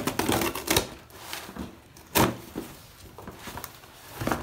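Slitting the packing tape on a cardboard shipping box and handling the box: scraping and crackling of tape and cardboard, with a few knocks, the loudest about two seconds in.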